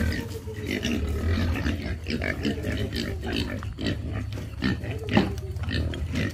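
A herd of young pigs grunting and squealing as they are lured in with feed, many short calls overlapping, the loudest one about five seconds in.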